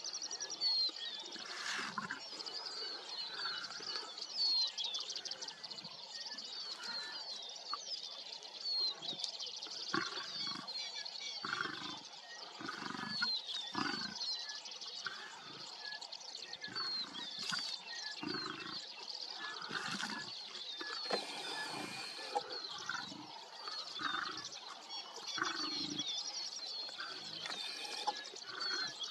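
Lions feeding on a warthog carcass, giving short low growls every second or two, over steady high chirping of birds.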